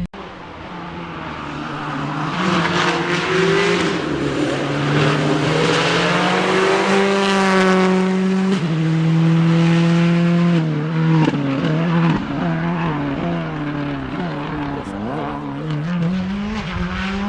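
A rally car engine at high revs, passing. Its pitch climbs and drops in steps as it shifts gear, and it is loudest about halfway through.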